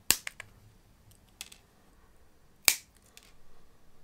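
Flush cutters snipping small printed supports off polycarbonate 3D-printed test specimens: sharp snips, a few in quick succession at the start and another loud one a little after halfway.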